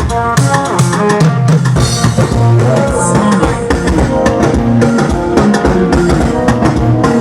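Instrumental music with a steady drum-kit beat and guitar.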